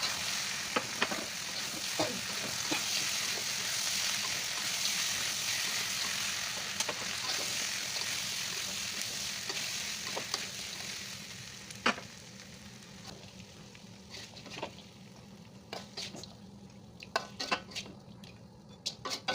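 Sambal frying in a pan with a steady sizzle, with spatula scrapes and clicks against the pan as it is stirred. About twelve seconds in, after a sharp knock, the sizzle drops away, leaving scattered clicks and taps of the utensil.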